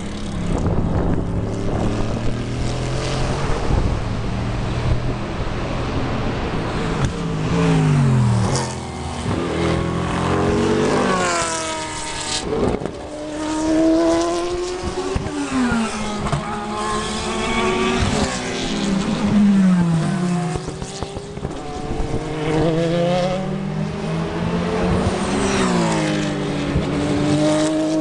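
A string of endurance race cars going through a corner one after another. Each engine note drops in pitch in steps as the car brakes and downshifts, then climbs again as it accelerates away, with the next car already arriving.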